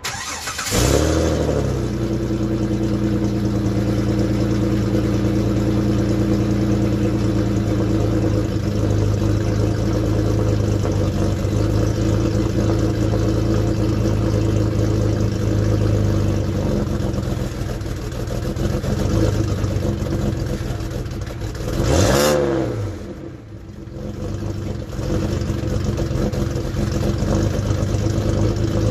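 2004 Jeep Liberty's 3.7-litre V6 with the catalytic converter deleted, heard at the exhaust tip. It starts and flares up, then settles into a steady idle. About 22 seconds in it is revved once, the pitch rising and falling quickly, dips briefly, and returns to idle.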